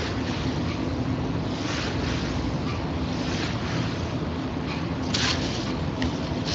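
Steady hiss with a low hum from an open microphone carried over an online voice-chat stream, with a brief louder rush about five seconds in.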